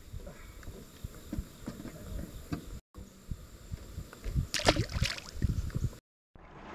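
Scattered knocks and bumps in a jon boat, with a louder brief rush of noise about two-thirds through; the sound drops out twice for a moment.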